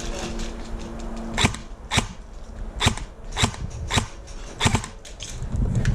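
Airsoft guns firing single shots, about seven sharp cracks spaced roughly half a second to a second apart.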